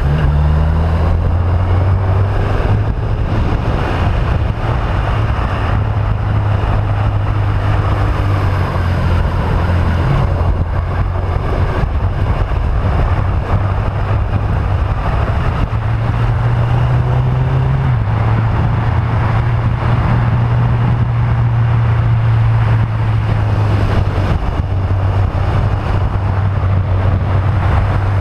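Motorcycle engine running at speed, with wind buffeting the microphone. The engine note holds steady and shifts in pitch a few times with throttle and gear changes.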